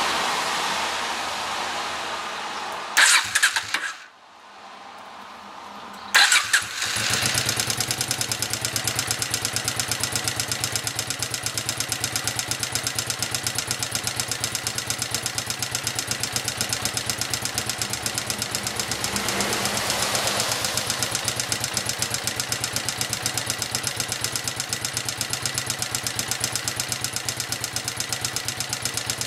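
Honda XLV 750's V-twin engine being cranked with two short bursts, catching about six seconds in and then idling with a rapid, regular ticking (cliquetis) that the owner puts down to the front cylinder. The engine swells briefly about twenty seconds in.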